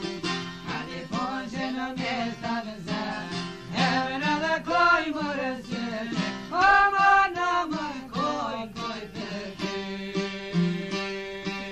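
Albanian folk wedding song: a singer carries a wavering, ornamented melody over plucked long-necked lutes (çifteli and sharki), and the lutes play on alone near the end.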